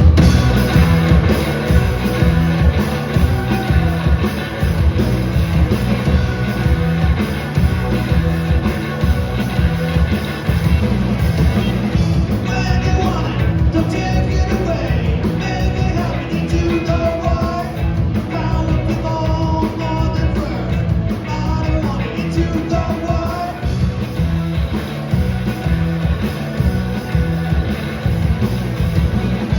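Punk band playing a song live, loud drums, bass and guitars, with shouted vocals coming in about twelve seconds in.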